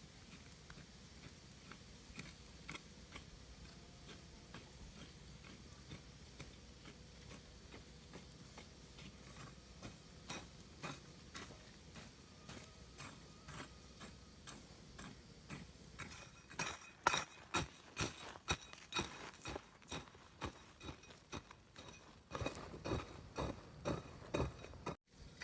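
A series of sharp knocks or taps, sparse at first, then coming regularly about two or three a second and growing louder about two-thirds of the way in.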